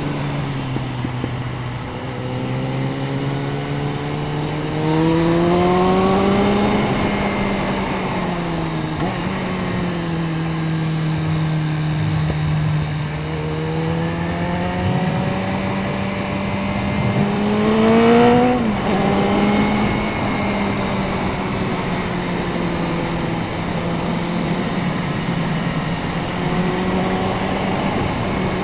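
Suzuki Bandit 650N motorcycle engine under way: it accelerates with a rising pitch, eases off, then climbs again to a peak about two-thirds of the way through. There the pitch drops sharply, and the engine then runs at a steady pitch for the rest of the ride.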